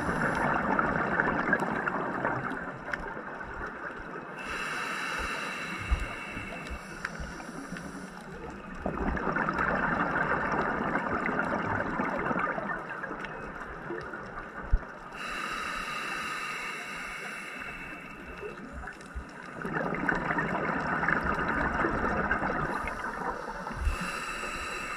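Underwater breathing of a scuba diver: exhaled bubbles from the regulator gurgling in three long bursts, roughly every ten seconds, with the quieter hiss of the regulator's inhale between them. A couple of sharp clicks sound in between.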